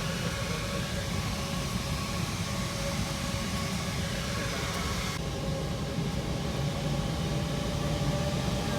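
Steady drone and hiss of a parked Airbus A320's cabin, with a few steady whining tones from the aircraft's air and power systems. The high hiss drops away suddenly about five seconds in.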